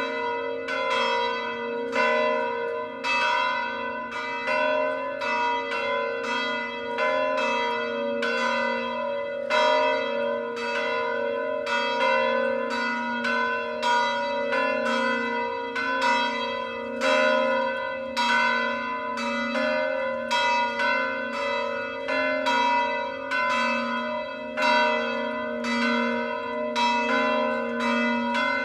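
Church bells ringing a peal, strike after strike at about two a second, with the hum of each bell carrying on between strokes.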